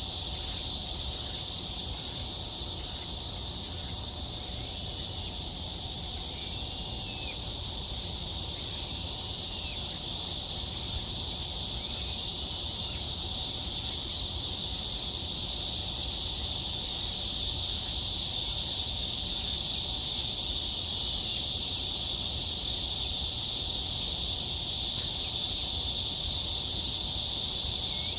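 A cicada chorus: a continuous, high, shrill buzz that holds steady without a break.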